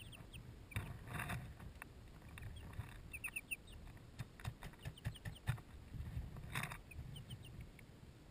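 Young Light Sussex chicks peeping faintly in short runs of high chirps. There are sharp taps and rustles of pecking and scratching in wood shavings close to the microphone.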